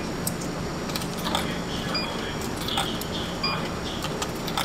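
A coin-operated vending machine being used: sharp mechanical clicks and clinks, with a short high electronic beep sounding twice, over a steady low hum.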